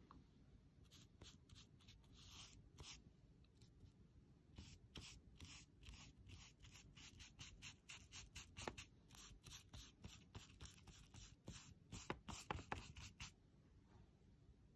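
Large flat watercolor brush swishing wet paint across watercolor paper in quick repeated strokes, a couple a second, faint; the brushing stops near the end.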